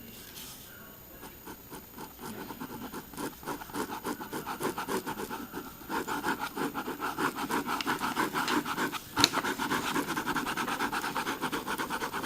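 Cheap ink pen scratching over sketch paper in quick, repeated strokes, growing louder a couple of seconds in, with one sharp click about nine seconds in.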